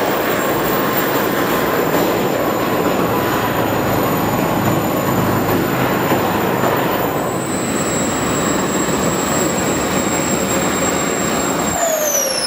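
Four model jet turbines (JetsMunt 166) of a large RC Airbus A380 running with a steady rushing noise and high whine. Near the end the whine falls steeply as the turbines spool down.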